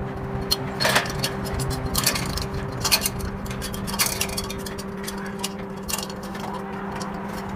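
A dog's claws clicking and scraping on the rungs of a metal ladder as it climbs, in irregular taps, over a steady low hum.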